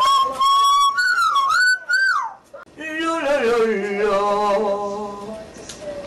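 Yellow-naped Amazon parrot whistling a loud, clear note that slides up and down for about two seconds. After a brief pause it sings a wavering, opera-style note that slides down and holds for a couple of seconds.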